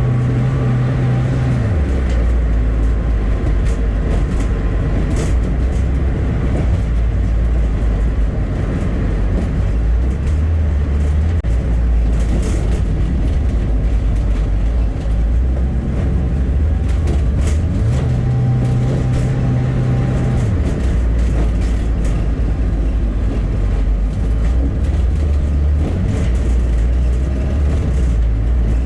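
Bus on the move with its engine running in a steady deep drone. The engine note steps up briefly twice, near the start and about two-thirds of the way through, over road noise and occasional light rattles.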